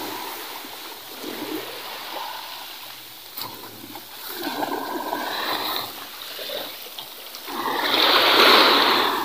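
Small waves washing onto a pebble shore: a rushing wash that swells and falls back a few times, loudest near the end.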